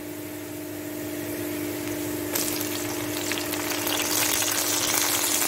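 Sliced onions and green chillies frying in oil in a kadhai, a steady sizzle that grows sharply louder about two seconds in as chopped tomato is added to the hot oil. A steady low hum runs underneath.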